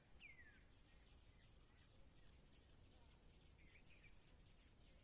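Near silence of outdoor ambience, with a few faint bird chirps: one falling chirp near the start and a couple more about four seconds in.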